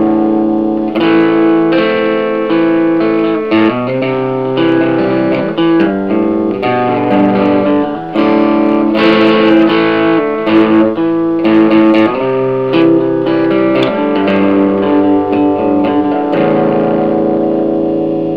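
Guitar played solo: a run of picked notes and chords, ending about two seconds from the end on a chord left to ring and fade away.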